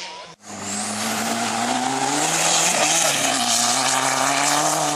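Rally car engine running at high revs as the car passes close on a gravel stage, with a loud hiss of loose gravel and dirt thrown from the tyres. The sound starts after a brief cut about half a second in and grows louder towards the middle, where the engine note dips briefly.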